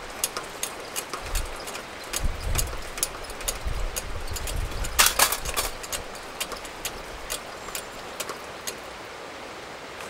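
Wood campfire crackling: irregular sharp pops and clicks, with a louder cluster of snaps about five seconds in, over an uneven low rumble that fades after the first half.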